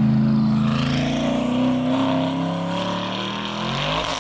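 Loud car engine note held at steady revs, its pitch sliding down near the end, with a rushing whoosh coming in at the very end.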